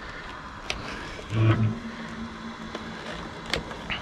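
Light clicks and knocks as hands handle the plastic Arrma Typhon 6S RC buggy, over steady outdoor hiss. A brief low hum comes about a second and a half in, then a faint steady tone trails off.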